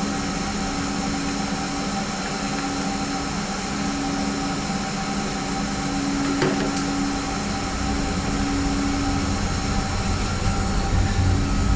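Steady mechanical hum, like a running fan or air-conditioning unit, with a low tone that drops out briefly a few times.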